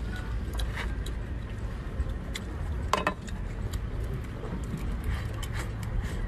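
Scattered light clicks and taps of a metal ladle and chopsticks against a wok and a scallop shell, the sharpest about three seconds in, over a steady low rumble.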